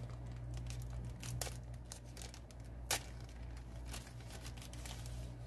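Packaging being handled: paper and plastic rustling and crinkling, with scattered small clicks and one sharper tap about three seconds in, over a steady low hum.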